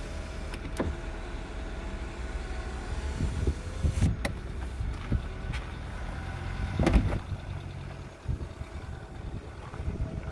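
A 2008 Kia Picanto's doors being handled: several clicks and clunks of a door latch and door, the loudest about seven seconds in, over a steady low rumble.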